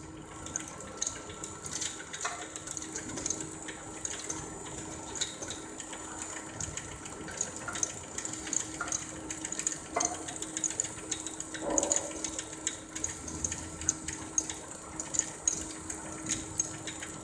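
Discharge machinery of a two-stage wood-chip dryer running: a steady hum with a few held tones under frequent irregular ticks and light rattles, as dried sawdust pours from the outlet chute into a bin.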